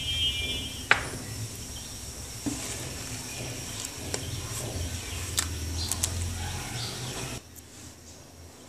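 Spatula stirring tomato sauce in a metal pot, with scraping and a few sharp knocks against the pot, the strongest about a second in. A low steady hum underneath stops suddenly near the end.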